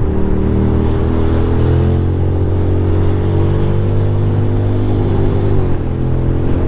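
2006 Ducati Monster 620's air-cooled L-twin engine running under steady throttle at highway speed, with its pitch dropping about a second before the end as the throttle eases.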